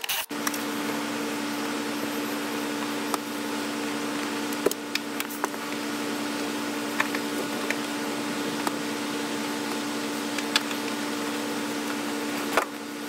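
Steady machine hum holding a few fixed tones, unchanged throughout, with a handful of light clicks and knocks scattered through it.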